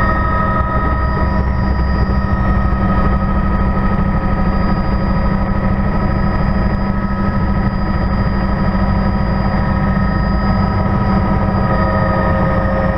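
Helicopter turbine and rotor running steadily: a constant low drone under a steady high whine.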